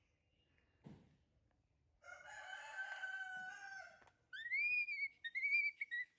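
A rooster crows once, a long crow of about two seconds. Then a baby macaque gives two high, thin calls that rise and then fall.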